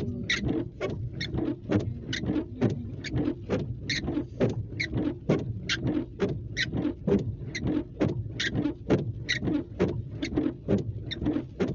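A car idling, heard from inside the cabin, with an even ticking about twice a second over the low engine hum.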